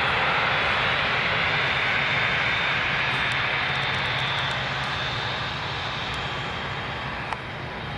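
Four-engined Airbus A380 jet engines running as the airliner rolls past on the ground: a steady roar with a thin high whine on top, slowly growing fainter as it moves away.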